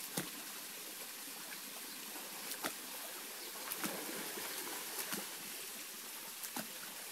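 Creek water running steadily, with a handful of short, sharp splashes as a dog wades and bounds through the shallow water.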